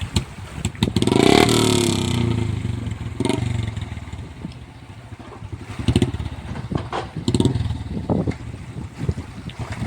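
Royal Enfield Bullet single-cylinder motorcycle engine revving up and dropping back about a second in, then running unevenly with sharp pops and short bursts of throttle.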